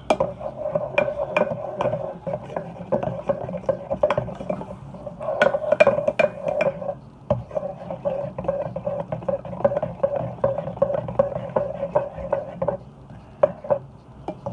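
A utensil stirring a thick slime mixture in a bowl: rapid scraping and clicking against the bowl's side. It pauses briefly about seven seconds in and stops a couple of seconds before the end.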